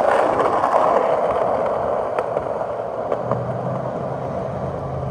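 Skateboard wheels rolling over rough, textured asphalt: a steady rolling rush with a few faint ticks.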